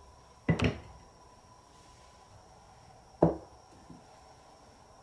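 Wooden marble-run pieces knocking against each other as they are set in place: a quick double knock about half a second in, then a single sharp knock about three seconds in.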